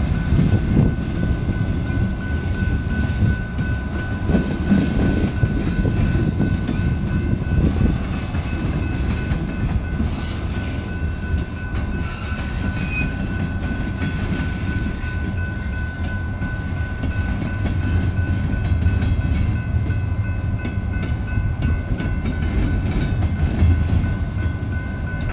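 Freight cars of a slow manifest train rolling past at a grade crossing: a continuous low rumble of steel wheels with irregular clacks and knocks, and a thin steady high tone over it.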